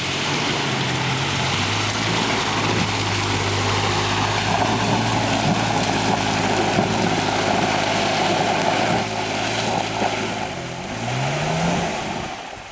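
Off-road 4x4's engine held at high, steady revs as it drives through deep mud, with a loud rushing noise over it. About ten seconds in the revs drop, then climb again before falling away.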